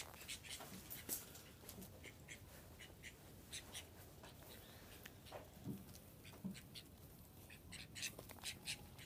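Soft, scattered scratchy scuffing of a puppy's and ducks' feet on a dirt-and-straw floor, with a couple of faint duck quacks near the middle.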